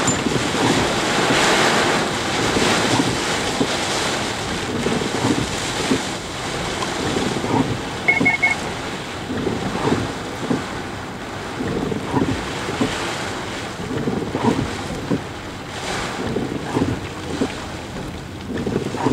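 Heavy rain and wind buffeting the microphone, with the rush and splash of floodwater thrown up by a pickup truck driving through the flooded road.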